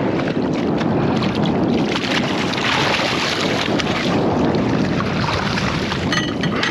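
Wind buffeting the microphone over water washing against a small boat's hull, a steady rushing noise. A short squeak sounds near the end.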